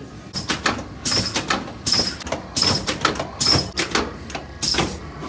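Six short rasping bursts about three-quarters of a second apart, from the chiropractor's nerve-prep treatment on the patient before the adjustment.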